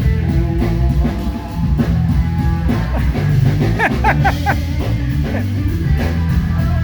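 Live rock band playing loudly through a PA during a sound check: drums, bass guitar and electric guitar, with a quick run of bent guitar notes a little past the middle.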